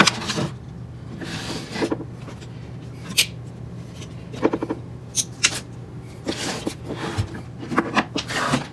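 Handling noises from working on the 3D printer's wiring: scattered clicks, taps and rustles of wires and small plastic parts being handled, over a steady low hum.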